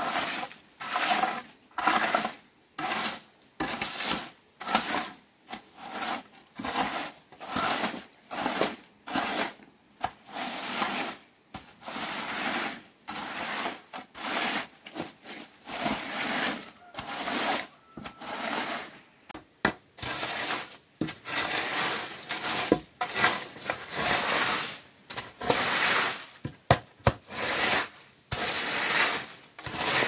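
Rhythmic scraping and rubbing strokes of a hand tool, about one stroke a second, with a few sharp clicks near the end.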